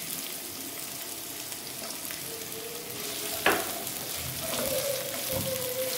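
Sliced onion sizzling in hot oil in a frying pan, stirred with a spatula, with one sharp knock about three and a half seconds in.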